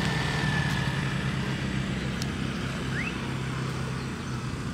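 A passing motor vehicle's engine hum, steady and low, slowly fading as it moves away.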